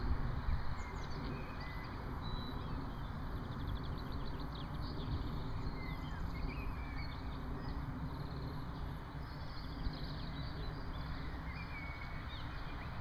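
Birds chirping and calling on and off over a steady low rumble of wind on the microphone.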